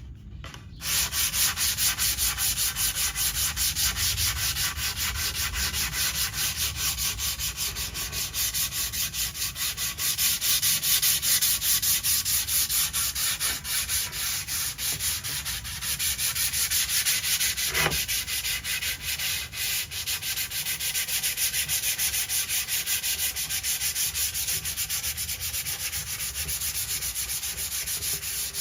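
Ceiling fan blade being hand-sanded with 180-grit sandpaper in quick, even back-and-forth strokes along the grain, starting about a second in, to smooth its rough finish.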